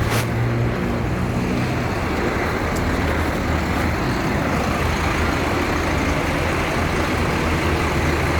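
A bus engine runs steadily as a low hum amid road traffic noise, with a brief click right at the start. No telolet horn sounds.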